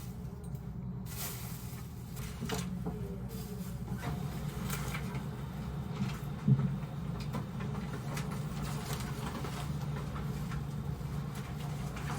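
Steady low hum, with scattered light clicks and rustles and one sharp knock about six and a half seconds in.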